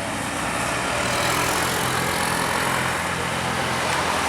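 A tour bus engine running, with a steady low hum under a broad rush of road noise that grows louder over the first second and then holds.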